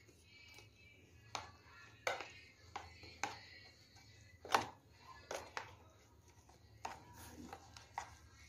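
A spoon stirring grated vegetables and cream in a plastic grater box: irregular clicks and taps of the spoon against the plastic, the loudest about halfway through, over a faint low hum.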